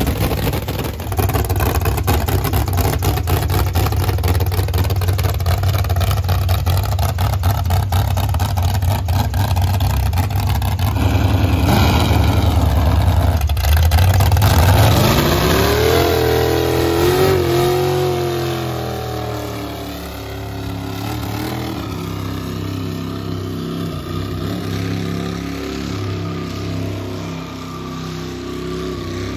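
Loud race-car engine with open zoomie headers running rough and steady for the first half, then revving up and climbing in pitch as the car pulls away. In the second half the revs rise and fall during a smoky burnout.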